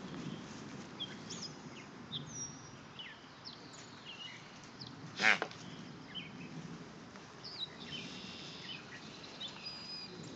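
Wild birds chirping and singing, with one short, loud animal call a little past halfway.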